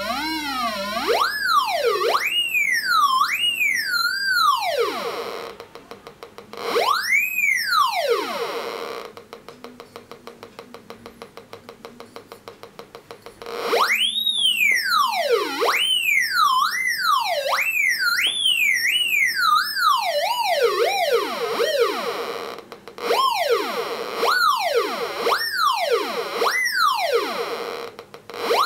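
Audio tone of a Raptor X pulse induction metal detector with a 32D search coil responding to metal passed in front of the coil. The pitch sweeps up and down in a series of arches. About nine seconds in there is a quieter stretch of rapid, even ticking, and the sweeping tone returns shortly after.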